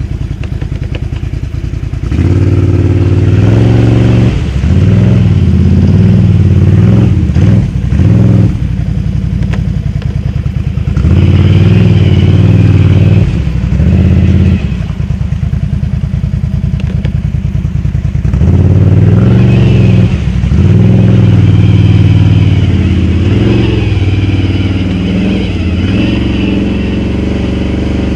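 Can-Am Outlander XMR 1000's Rotax V-twin engine through dual slip-on exhausts, loud and under way, revving up and easing off again and again as the throttle is worked.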